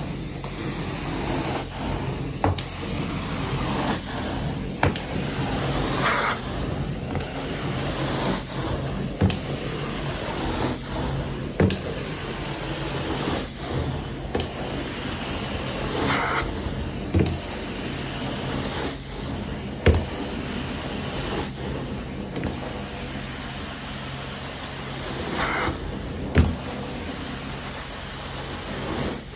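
Carpet extraction wand's steady rushing suction as it is drawn across wet carpet, over a steady machine hum, with a short knock about every two seconds.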